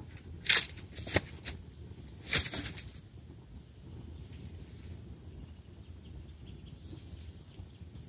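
Wood campfire of dry sticks crackling: several sharp snaps in the first three seconds, the last a short cluster of pops, then only faint scattered ticks over a low hiss.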